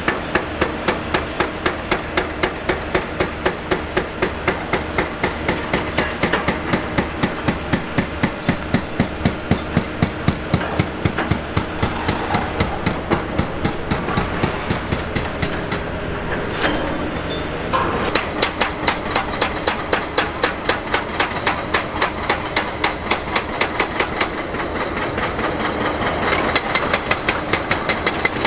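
Rapid, regular hammering on a hard surface, about three blows a second without a break, over a steady engine running underneath.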